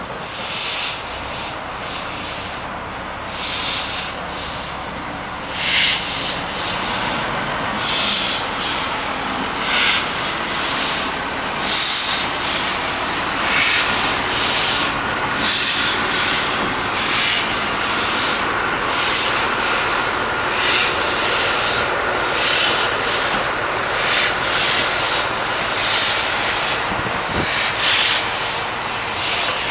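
Small industrial steam locomotives working slowly past in a coupled line, with slow, regular exhaust chuffs roughly one a second and steam hissing from the cylinders.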